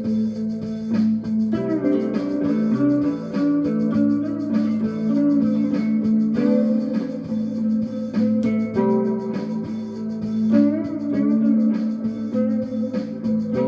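Looped improvisation on a homemade 19-inch short-scale fretless plucked stringed instrument tuned A–E–A, at 100 bpm: a held drone on A under plucked melody notes, some sliding in pitch.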